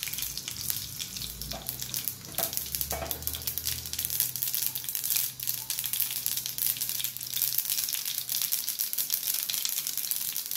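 Mustard seeds, curry leaves and dried red chillies sizzling in hot coconut oil in a small pan, a South Indian tempering, with a steady crackle of many small pops. A low hum runs underneath for the first few seconds.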